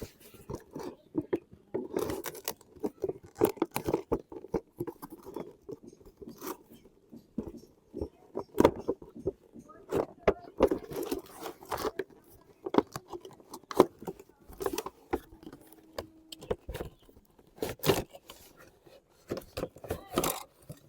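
A toy and its packaging being handled: irregular clicks, knocks, rattles and scrapes, several a second, with no steady rhythm.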